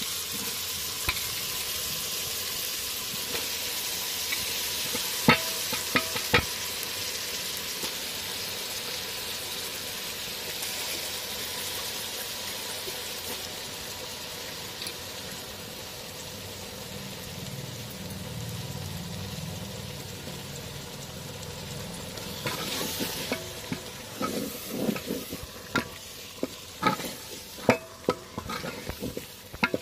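Raw meat sizzling as it fries in hot mustard oil with onions in an aluminium pot, with a few sharp knocks about five seconds in. In the last third a wooden spatula stirs the meat, knocking and scraping irregularly against the pot.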